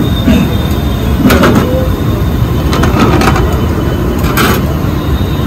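Loud steady rumble of a busy street-food kitchen, with a few short scrapes and clinks as cheese is grated over an omelette sandwich on a flat iron griddle and a metal spatula works the pan.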